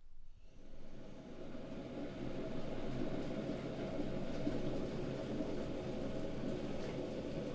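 Steady low rumbling hum of a kitchen appliance, growing louder over the first couple of seconds and then holding steady.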